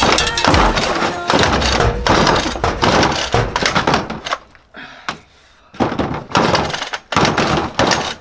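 A dense run of irregular thuds and knocks, with a short lull about halfway through.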